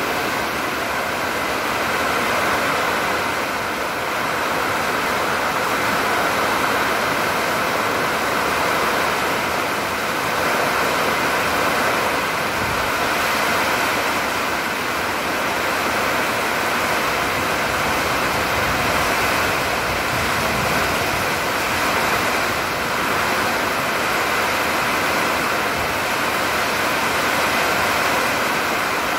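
Heavy summer downpour: a steady, dense hiss of rain pouring down.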